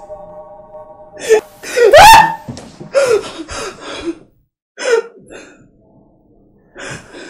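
A woman gasping and crying out in distress as she is held by the throat, with a loud rising wail about two seconds in and shorter sobbing cries after it.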